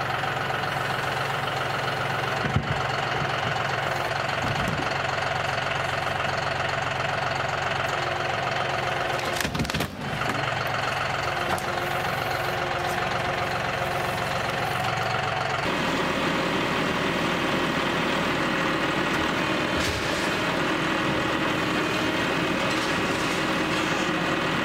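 John Deere utility tractor's diesel engine running steadily while the loader and grapple work, with a sharp knock a few seconds in and another near ten seconds. The engine note changes about two-thirds of the way through.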